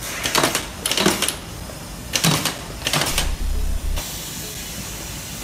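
APLUS A3218S-AAV auto-loading carton stapler driving staples into a cardboard carton's top seam: four short bursts of clicking in two pairs, then a low thump and a steady hiss from about four seconds in.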